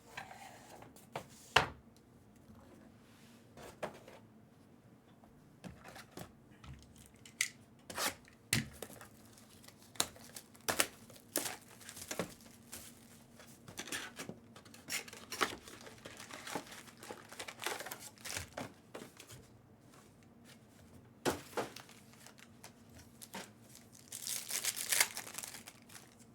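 Trading-card box packaging being torn open and handled: plastic wrap and pack wrappers crinkling and ripping, with scattered short taps and rips and one longer tearing rip near the end.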